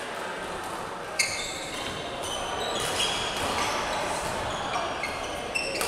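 Badminton rally on an indoor court: sneakers squeaking in short chirps on the court floor, with racket strikes on the shuttlecock, the sharpest about a second in.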